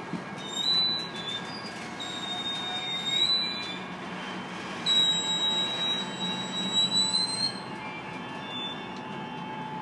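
Freight train of open-top hopper cars rolling past with a steady rumble, its wheels squealing high-pitched in several bouts. The longest squeal runs from about five to seven and a half seconds in, then the squealing stops.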